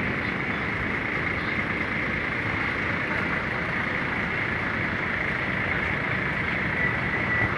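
Steady running noise of a large coach idling. Near the end a reversing beeper begins sounding in short repeated beeps.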